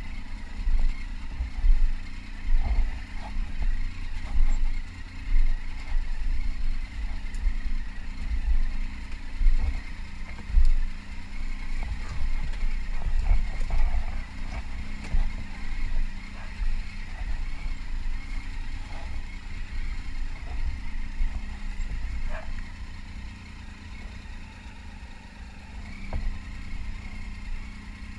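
Adventure motorcycle ridden slowly over a rough dirt trail: the engine runs at low revs under an uneven low rumble that swells and dips, and it grows quieter in the last few seconds.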